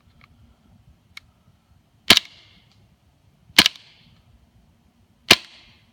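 FNX-45 Tactical gas blowback airsoft pistol firing three single shots, each a sharp crack about a second and a half apart. The slide locks back empty after the last shot.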